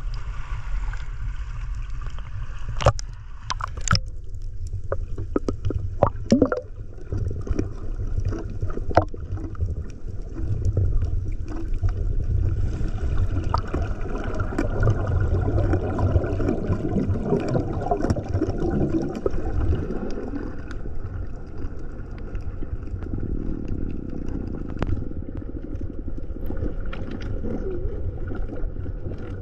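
Water heard through a camera at and below the sea surface: a steady muffled low rumble, with sharp clicks and knocks in the first several seconds and a swelling gurgling slosh midway.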